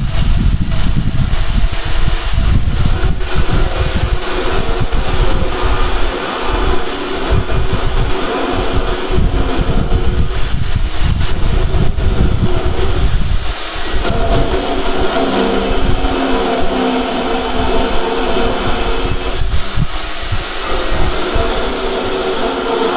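Yato YT-82185 portable band saw running on its lowest speed setting, its blade cutting slowly through a thick steel angle: a steady high motor whine over the rasp of the teeth in the metal.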